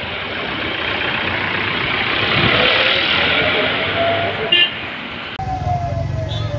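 Street noise with a steady hiss, broken by a short car horn toot about four and a half seconds in. Near the end the sound changes abruptly to a low hum and a siren-like tone that falls and then starts to rise.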